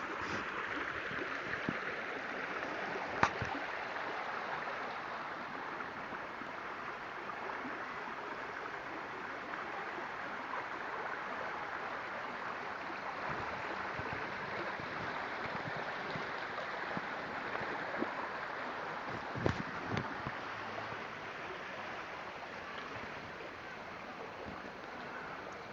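Steady rushing of a flood-swollen stream, easing slightly toward the end. A sharp click comes about three seconds in and a few more around twenty seconds.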